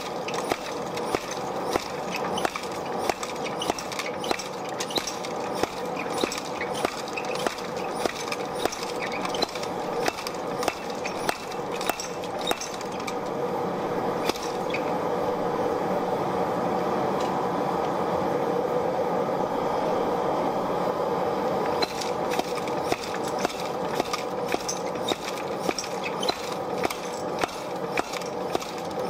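Treadle hammer striking two white-hot half-inch mild steel bars on an anvil to set a forge weld, a steady run of blows about one and a half a second. The blows stop for several seconds in the middle, leaving a steady rushing noise, then start again.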